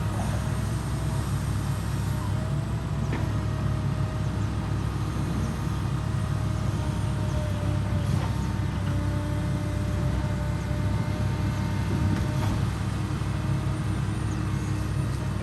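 Heavy diesel construction machinery running steadily, a constant low engine rumble, with a few light knocks over it.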